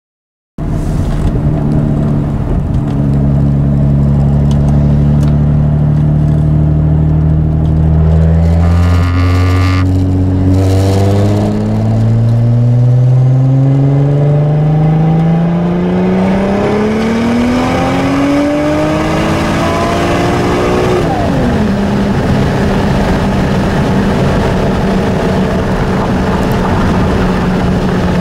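Single-turbo 2.7-litre V6 of a 2001 Audi S4, tuned for 30 psi of boost on pump gas with methanol, heard from inside the cabin. It runs steadily at low revs, then climbs in one long rising pull under hard acceleration. About twenty-one seconds in the pitch drops sharply as the throttle is released, and the engine settles to a steady cruise with road noise.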